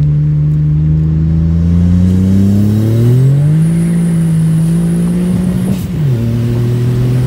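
A heavily tuned VW Up 1.0 TSI's turbocharged three-cylinder engine, heard from inside the cabin, pulling hard under full acceleration. The engine note climbs steadily for about three seconds and holds high, then drops sharply at an upshift about six seconds in and carries on pulling in the next gear.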